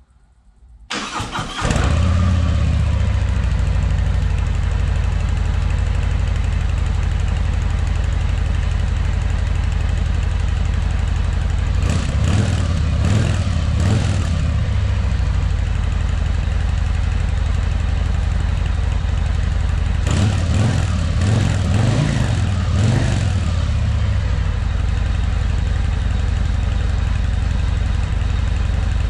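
Harley-Davidson CVO Road Glide's Milwaukee-Eight 117 V-twin on its factory exhaust, cold-started: the starter turns briefly and the engine catches, then settles into a steady loping idle. It is blipped a few times around 12 seconds in and again around 20 seconds in, dropping back to idle each time.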